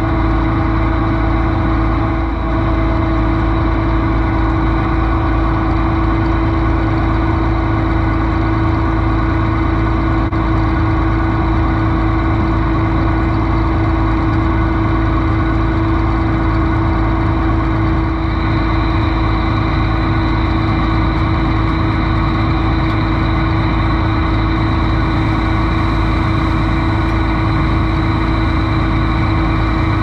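An engine running steadily at a constant speed while a grain auger carries shelled corn up from a gravity wagon's hopper. A high steady whine joins about two-thirds of the way through.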